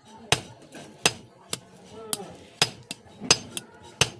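Blacksmith's hammer striking iron while forging a chisel: sharp ringing metal blows about every 0.7 s, with lighter taps in between.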